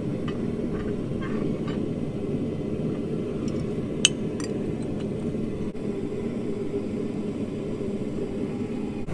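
Propane forge burner running steadily throughout, with a few faint metal clinks. About four seconds in comes a single sharp metallic crack as the water-quenched piece of lawnmower-blade steel snaps in the bench vise, a sign that the steel hardened.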